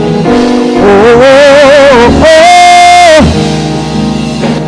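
Gospel worship music: a singer holding long sung "oh" notes with vibrato over a band's sustained chords.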